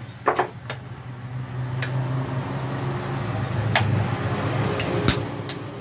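A hammer tapping the steel body of a Kawasaki Ninja 250 rear monoshock clamped in a vise, widening the body's thin lip to free the seal's retaining ring. The sharp metallic strikes are scattered: a quick cluster near the start, then a few single taps. Under them a steady low motor hum swells from about a second in.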